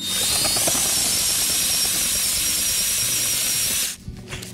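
Powered ice auger boring through lake ice: a steady grinding hiss with a high motor whine that climbs in the first second and then holds. It stops suddenly about four seconds in, with the hole not yet through.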